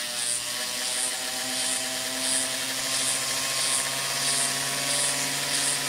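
Foot-pedal rotary handpiece with a diamond grinding bit running steadily, grinding the edge of cured epoxy down to a marked line. A soft high hiss pulses about one and a half times a second over the motor hum.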